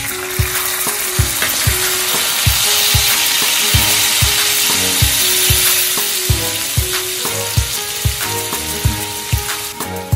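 Lemon juice hitting hot oil in a wok: a loud sizzle that swells over the first few seconds and dies down in the second half. Background music with a steady beat plays throughout.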